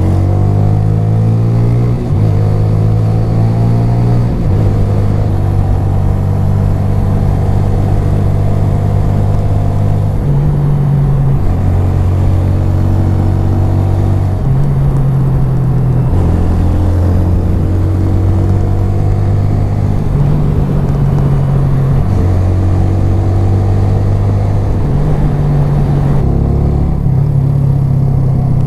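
Suzuki GN125H's air-cooled single-cylinder four-stroke engine running continuously, its low note stepping up and down in pitch every few seconds.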